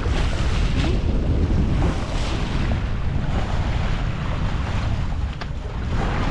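Wind buffeting the microphone over the wash of water along the hull of a sailboat under sail, a steady noise that is strongest in the lows.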